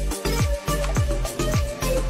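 Background music with a steady beat and a deep kick drum, about three beats a second.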